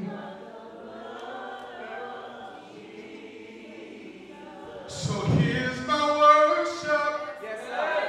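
Gospel singers singing together in long held notes, soft at first, then louder and fuller about five seconds in.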